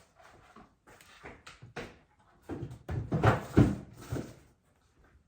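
Groceries being handled and put away: a run of short knocks and clatters, with a cupboard- or fridge-door-like bang loudest about three to four seconds in.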